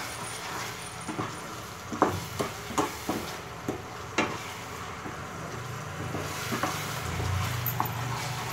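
Wooden spatula stirring thick mango pulp and sugar in a pan of hot ghee: a soft sizzle with irregular knocks and scrapes of the spatula against the pan. About six seconds in a low steady hum joins.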